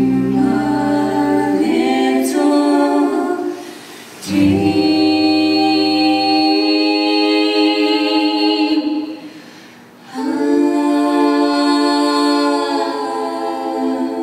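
Three voices, a man and two women, singing slow close harmony with little or no accompaniment, in three long held chords with short breaths between them about three and a half and nine and a half seconds in.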